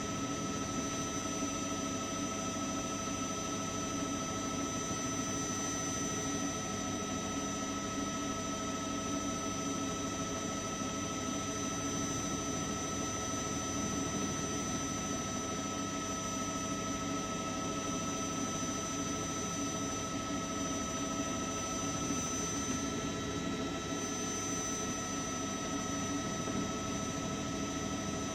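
News helicopter's turbine engine running steadily: a constant drone with several high, even whining tones above it.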